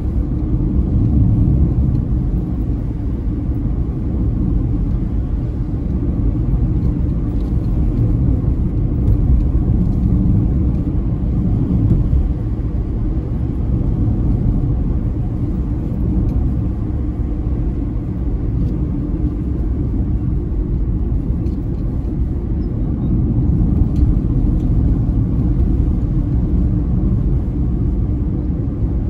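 Steady low rumble of a car driving along a country road, heard from inside the cabin: engine and tyre noise.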